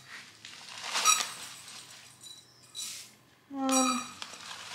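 A metal measuring cup clinks against a glass bowl, with the rustle of a paper bag as dry rolled oats are poured out. A louder, brief pitched sound comes near the end.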